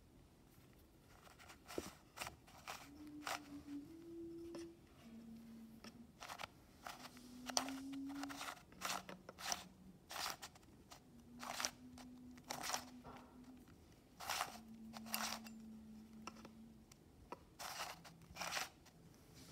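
Plastic shape-mod 3x3 puzzle cube being turned by hand: irregular clicks and clacks as its layers are twisted and snap into place. A faint low hum comes and goes behind it.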